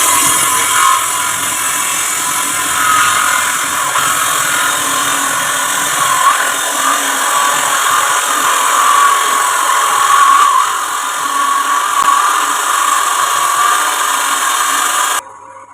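Wood lathe spinning a wooden blank while a turning tool cuts it: a loud, steady, high scraping noise with a wavering squeal running through it. It starts suddenly and cuts off suddenly near the end.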